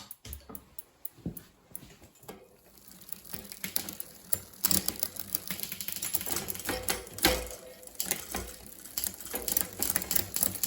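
Mountain bike drivetrain cranked by hand: the chain runs over the rear cassette and through the derailleur with fast, continuous clicking while the gears are shifted to test a freshly adjusted low limit screw. A single thump about seven seconds in.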